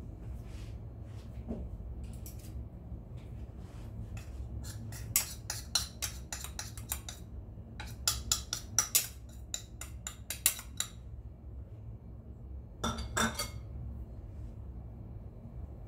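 Small ceramic bowl tapped against a metal mesh sieve to knock out ground cinnamon and baking soda: a run of quick clinks lasting several seconds, then a short cluster of clinks a couple of seconds later, over a steady low hum.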